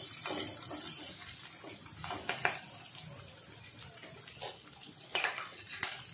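Bay leaf, cinnamon and green chillies frying in oil in a clay pot: a hissing sizzle that dies down over the first second or so, with a few short clicks and scrapes of a wooden spoon against the earthenware.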